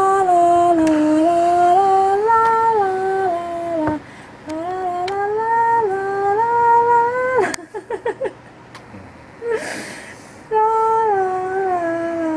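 A person humming a tune: held notes stepping up and down in three phrases with short pauses between them.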